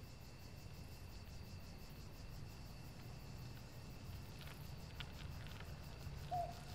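Crickets chirping steadily in a low night-time ambience with a faint rumble, slowly growing louder. Near the end an owl's hoot begins.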